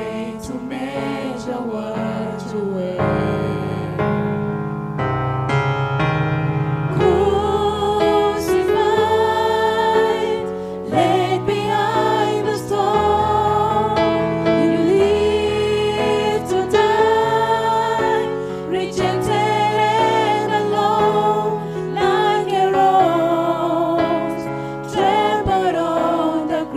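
Gospel song: a choir singing with keyboard accompaniment.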